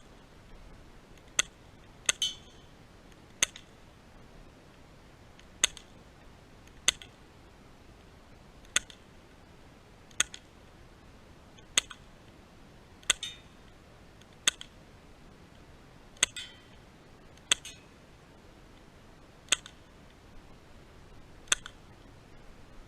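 A CO2-powered Black Ops BOA airsoft pistol firing single shots, about fifteen sharp cracks spaced roughly one to two seconds apart as the magazine is emptied.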